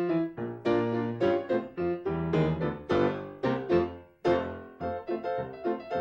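Solo piano music: a brisk run of struck notes with a brief break just past four seconds in.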